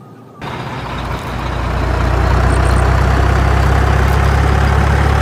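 Engine sound of a toy excavator, a heavy diesel-like drone that starts about half a second in, builds up over a second or so, then runs steadily at idle.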